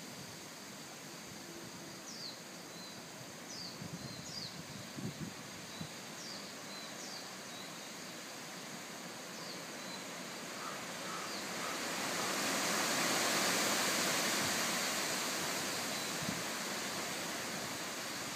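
Strong wind ahead of a typhoon rushing through forest trees, swelling into a louder gust about two-thirds of the way through. Brief high, falling bird chirps come in the first half, with a few low thumps of wind on the microphone.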